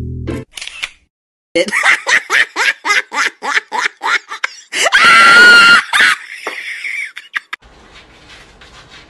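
High-pitched giggling laughter in a quick run of short bursts, then a loud shrill scream about five seconds in. Faint room noise follows near the end.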